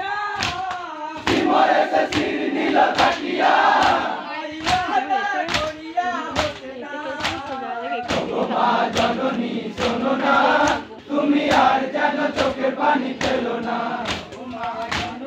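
Crowd of men chanting a Muharram matam lament together while beating their chests in unison, the slaps landing on a steady beat a little faster than once a second.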